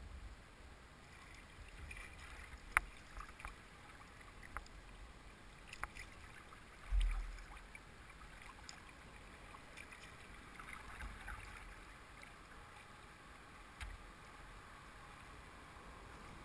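River water rippling and lapping at the bow of a paddled boat moving along a fast current, with scattered light clicks and taps and a few dull low thumps, the biggest about seven seconds in.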